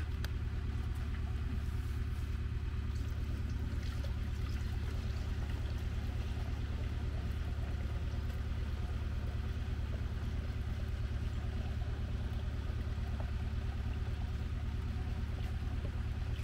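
Water-diluted penetrating primer poured from a plastic bucket into the tank of a Huter battery backpack sprayer, over a steady low mechanical hum.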